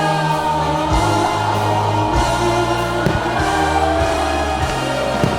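Music: a song with a sung vocal over held bass notes, with a deep thump about once a second.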